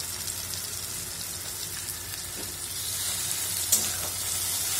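Onion, tomato and garlic paste sizzling in mustard oil in a wok, stirred with a metal spatula; the sizzle grows louder from about halfway through, with one sharp click a little before the end.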